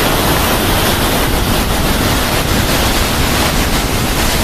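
Waterfall swollen by monsoon rain, its falling water making a loud, steady rush.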